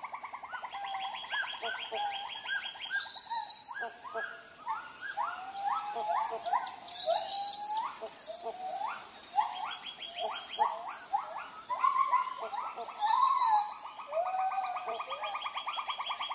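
Tropical rainforest chorus of birds and other animals calling over one another: rapid trills that come and go, and many short rising whistled notes, busiest in the middle.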